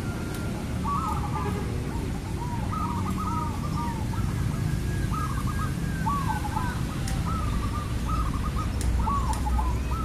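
Zebra dove (perkutut) cooing: a run of short trilled coo phrases repeated again and again, over a steady low background rumble.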